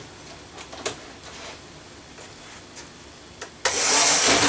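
Faint scattered clicks and taps of small model locomotives being handled. Near the end comes a loud rubbing scrape lasting just under a second.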